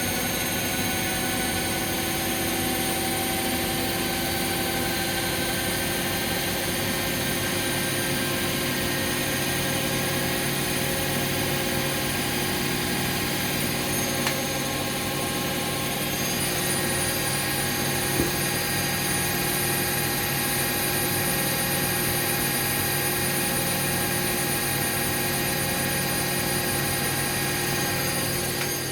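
Bosch Classixx front-loading washing machine and a Hoover washing machine in their final spin at high speed: a steady motor whine of several fixed pitches over the hum of the spinning drums, with two small clicks near the middle.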